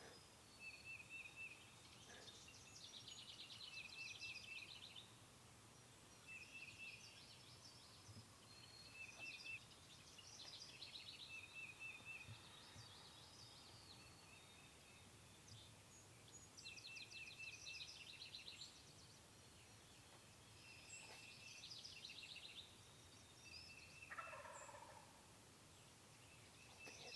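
Faint birdsong with repeated high trills and short chirp series. About 24 seconds in, a wild turkey gobbles once in the distance, a rattling call that falls in pitch.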